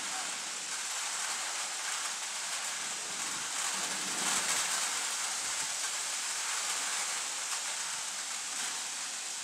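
Steady rain falling during a thunderstorm, an even hiss that swells a little about four seconds in.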